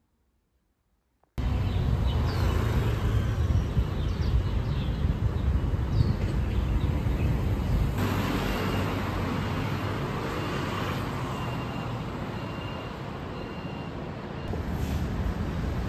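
City road traffic: a steady rumble of passing vehicles that starts abruptly about a second and a half in, after near silence. A faint high beep repeats through the middle.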